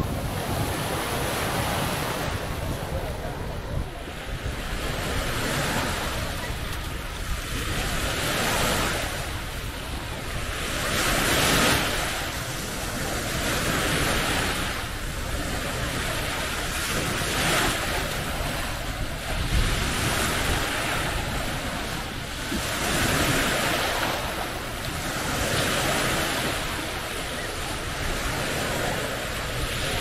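Small waves breaking and washing up a sandy shore, the surf swelling and fading every two to three seconds.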